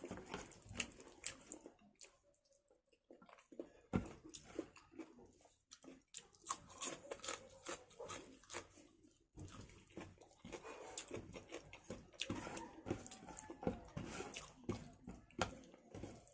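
Close-miked chewing and wet mouth sounds of someone eating chicken in gravy with rice: irregular smacking clicks, broken by a few brief pauses.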